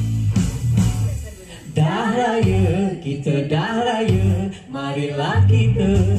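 Cheerful Malay pop song performed live: a singer's voice over backing music, with the singing coming in about two seconds in after a short instrumental stretch.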